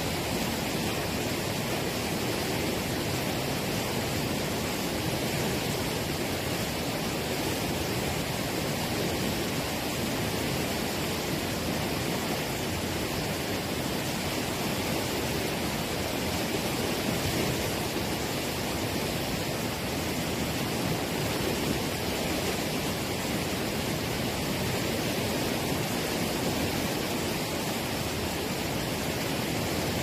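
Fast-flowing whitewater rapids rushing and pouring over rocks in a steady, unbroken rush.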